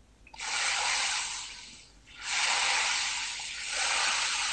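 Hot chickpea broth ladled into a frying pan of garlic, pimentón and flour fried in oil, sizzling as it hits the hot fat. Two ladlefuls: each starts with a sudden burst of hiss that fades over a second or two, the second a couple of seconds in.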